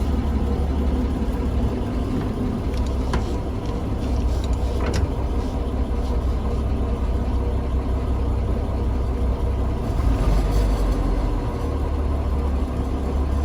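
1956 Dodge Town Panel's engine running steadily, heard from inside the cab, with two sharp clicks a few seconds in and briefly louder around ten seconds in.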